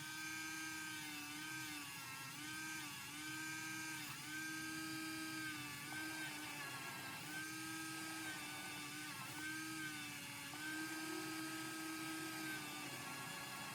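Dremel rotary tool spinning a small polishing wheel on a clear plastic model-car window, giving a steady whine whose pitch dips briefly again and again. The footage is sped up, so the tool sounds like it runs at higher RPM than it really does.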